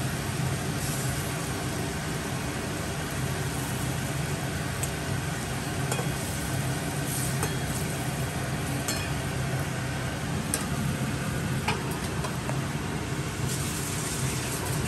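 Fish curry gravy bubbling in a metal wok, over a steady low hum, with a few light clicks of a metal spatula against the pan.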